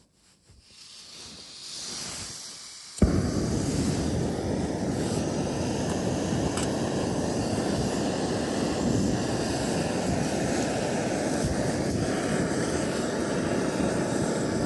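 Wind rushing and buffeting over a phone's microphone, cutting in suddenly about three seconds in and then blowing steadily.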